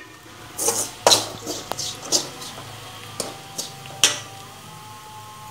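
Steel spoon stirring browned grated coconut in an aluminium kadai, with a string of short clinks and scrapes of the spoon against the pan; the sharpest clink comes about four seconds in.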